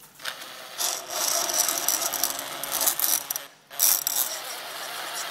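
Power drill running and cutting, drilling out a stripped threaded hole in a spindle bracket ahead of a thread-insert repair. It stops briefly a little past halfway, then starts again.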